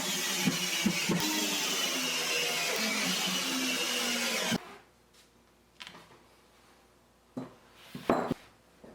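An electric power tool runs steadily for about four and a half seconds and cuts off suddenly, followed by a few short knocks.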